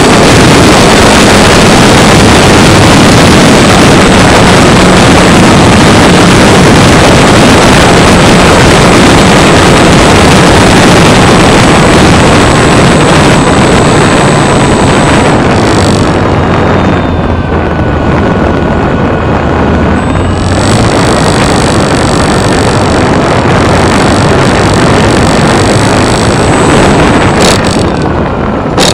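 Electric motor and propeller of an RC Stearman biplane running, with heavy wind rush over the onboard camera's microphone. About halfway through the power drops and the whine falls away, then comes back up, and near the end the motor winds down with a falling whine as the plane is on the ground.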